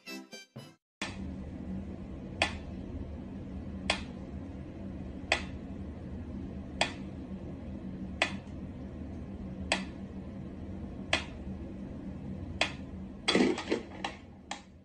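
Mechanical pendulum metronome ticking slowly and evenly, about one sharp tick every second and a half, over a steady low hum. A brief clatter of scuffling knocks near the end.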